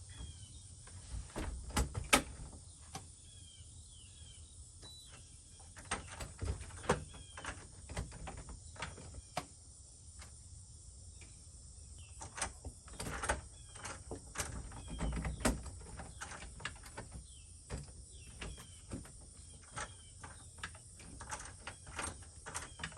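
Schlage Touch keyless deadbolt being worked at a door: a string of sharp clicks and knocks from the keypad, latch and knob, spread over the whole stretch. The code is accepted and the lock clicks, but the faulty lock does not engage and the knob spins freely.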